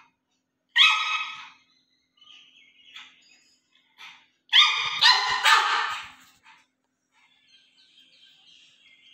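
Pug barking in high-pitched yaps: one bark about a second in, then a quick run of several barks around the middle.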